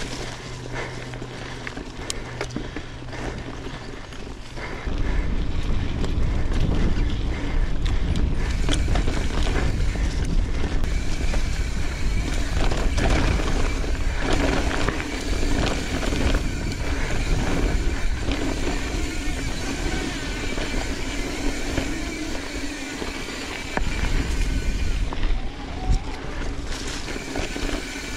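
YT Izzo trail bike ridden fast on dirt singletrack: tyre noise and the rattle and clatter of the bike over the trail. Wind rumbles on the microphone from about five seconds in.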